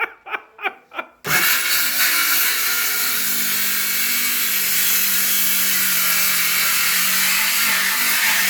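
Circular saw starting up suddenly about a second in and running steadily as it cuts through a wooden board.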